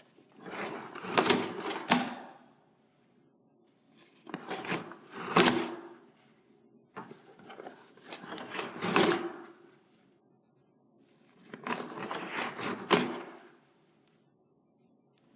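Commercial paper towel dispenser: a towel is pulled out and torn off along its perforation four times. Each pull lasts a couple of seconds and ends in a sharp tear.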